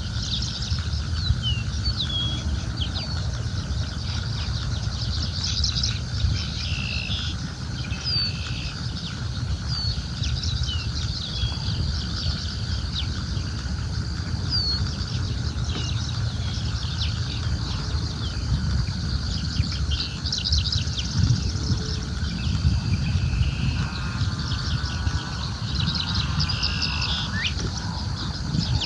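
Birds chirping and calling, with short falling notes and trills, over a steady low rumble of wind on the microphone.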